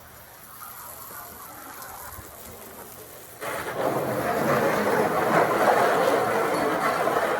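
Running water starts suddenly about halfway through and gushes steadily, as water is run for the birds.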